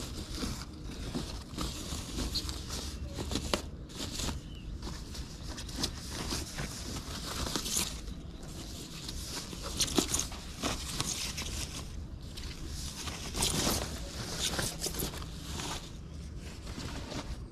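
Thin plastic wrapping bag crinkling and rustling in irregular crackles as it is worked off a motorcycle helmet.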